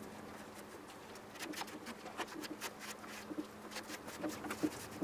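Hand scrubbing of a dirty moped's bodywork during cleaning: a run of short, irregular rubbing and scratching strokes, starting about a second and a half in, over a faint steady hum.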